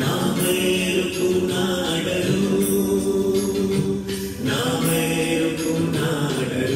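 Several voices singing a Hindi devotional prayer song together, in long held notes. The singing comes in phrases of about two seconds with short breaks between them.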